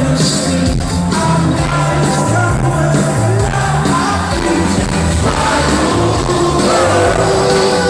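Live pop-rock band playing, with a sung vocal line over a steady bass beat, heard as a loud concert mix in a large hall.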